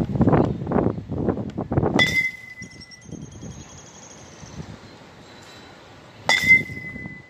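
Rough scuffing and rustling at first, then two sharp metallic pings about four seconds apart: a Louisville Slugger Omaha aluminium baseball bat striking a ball, each strike followed by a ringing tone of a second or more.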